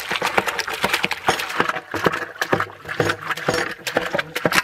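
Grapes being crushed and squeezed by hand in pots: a fast, irregular run of squelches, clicks and knocks.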